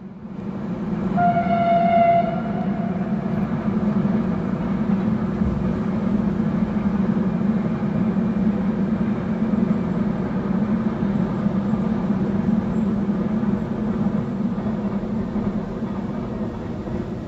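Container freight train running over a viaduct: a steady rumble of wheels on rails. A train horn sounds once, a single held tone of about a second, a little over a second in.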